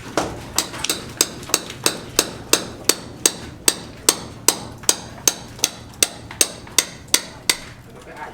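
Hand hammer striking in a steady run of about three blows a second, each a sharp ringing knock. The blows stop near the end.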